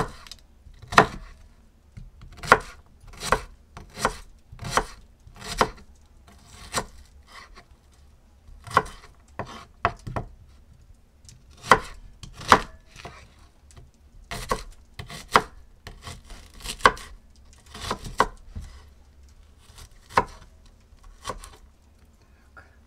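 Kitchen knife dicing an onion on a wooden cutting board: sharp, short knocks of the blade through the onion onto the board, roughly one a second, at an uneven pace with a few short pauses.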